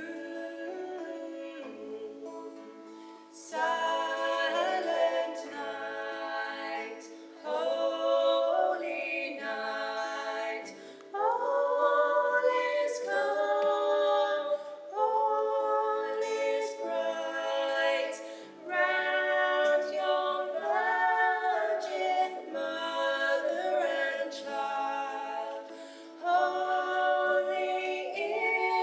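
Two women singing a Christmas song together in harmony, softly at first, then fuller from about three and a half seconds in, in phrases of a few seconds with short breaths between.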